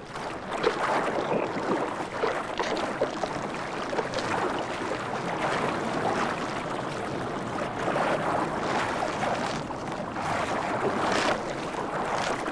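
Water splashing and churning steadily as tiger sharks thrash at turtle carcasses in the shallows, with a sharper splash near the end.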